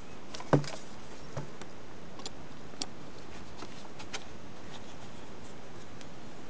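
Knocks and clicks of the ground-penetrating radar's receiver unit being fitted onto the handle pole's mount: one sharp knock about half a second in, then a few light clicks, over a steady background hiss.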